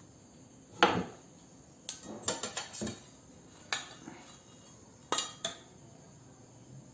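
Utensils and dishes knocking and clinking as they are handled: one sharp clatter just under a second in, a quick run of clinks between about two and three seconds, and a few more near four and five seconds.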